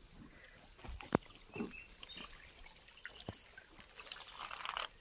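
A few faint knocks and rustles, then water sloshing and splashing near the end as a carp is lowered back into the river shallows by hand.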